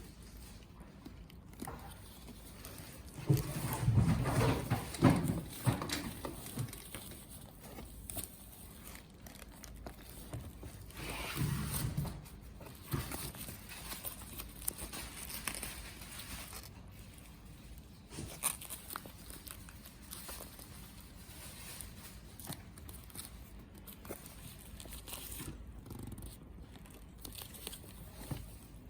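Packaging being handled during a bag unboxing: rustling and crinkling with small clicks and knocks. The rustling swells louder about three to six seconds in and again around eleven seconds.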